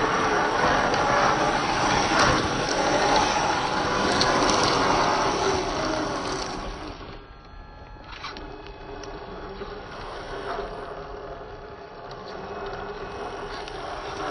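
Traxxas TRX-4 RC crawler running: its electric motor and geartrain whine, rising and falling in pitch with the throttle, over a noisy churn from the tyres and chassis. The sound is loud for about the first seven seconds, then drops quieter with a steadier whine.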